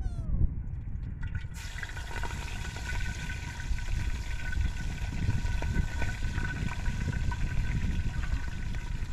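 Hot oil sizzling in a pot as small fish are dropped in to fry; the sizzle starts about a second and a half in and then holds steady. Wind rumbles on the microphone underneath.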